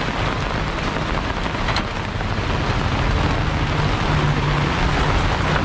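Steady rain mixed with motorbike traffic on a wet road, with a low engine hum running underneath.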